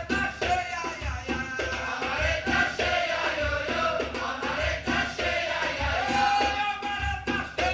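Batucada samba drum ensemble playing a steady groove, the surdo bass drums beating about twice a second under lighter drums, while a group of voices sings along.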